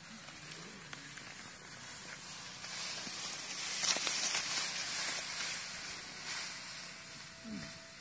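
Dry rice straw rustling and crackling as a large bundle carried on a person's back brushes past close by, swelling to its loudest about four seconds in and then fading.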